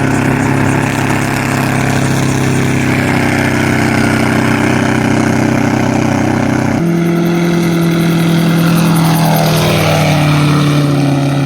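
Homemade gyrocopter's engine and propeller running steadily, with a sudden step up to a higher pitch about seven seconds in.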